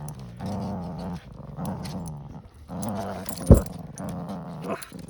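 Cavalier King Charles spaniels growling in repeated low rumbling bouts during a tug-of-war over a toy, with one sharp thump about three and a half seconds in.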